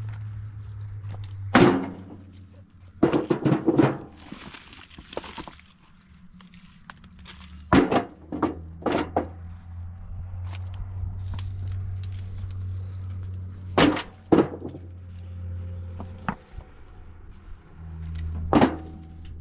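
Irregular dull thuds and knocks, some coming in quick clusters, over a low steady hum that drops out now and then.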